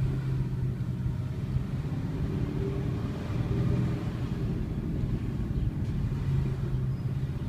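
2012 Ford Mustang GT's V8 running with a steady low drone and rumble.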